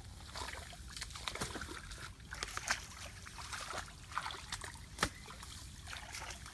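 Shallow muddy stream water splashing and sloshing as children wade through it and grope by hand for fish, in irregular small splashes with one louder splash about five seconds in.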